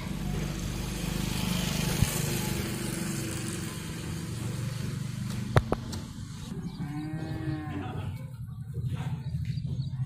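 Low, moo-like livestock call that rises and falls once about seven seconds in, over a steady low rumble. Two sharp knocks come about two seconds and five and a half seconds in.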